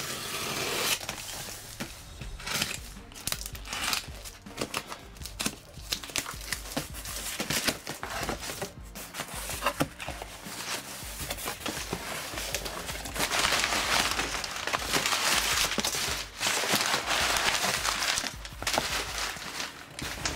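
Cardboard shipping box being unpacked: packing tape slit with a utility knife, flaps pulled open, and crumpled brown kraft packing paper rustled and pulled out, the paper crinkling loudest in the second half. Quiet background music runs underneath.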